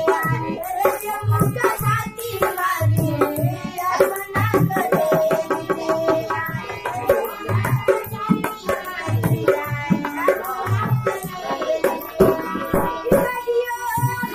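Bhojpuri folk song: a woman's singing over a harmonium's held chords and a hand-played dholak keeping a steady beat.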